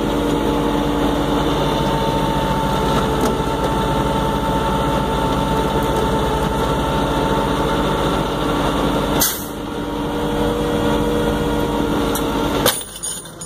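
Flatbed tow truck's engine running steadily under load to drive its winch as the cable pulls an overturned SUV back onto its wheels. A sharp click, then a short drop in the engine sound, comes just after nine seconds and again near the end.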